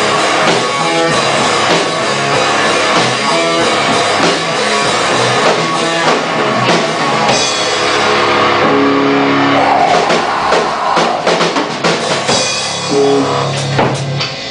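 Live rock band playing loudly: electric guitar, bass guitar and drum kit. In the last few seconds the playing turns choppier, with separate drum hits and held notes.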